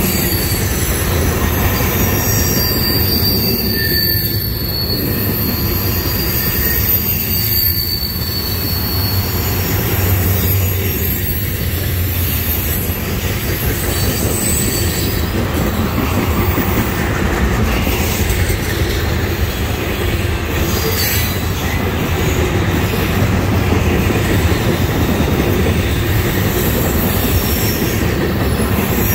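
Freight cars of a long trash train rolling past with a steady rumble of steel wheels on rail. High-pitched wheel squeal comes and goes over it, most plainly in the first third.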